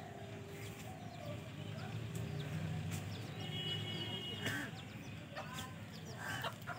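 Chickens clucking faintly now and then, with small birds chirping and a steady low background hum.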